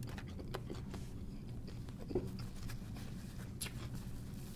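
Quiet eating sounds: faint chewing and small mouth clicks over a low steady hum, with a paper napkin wiped across the mouth near the end.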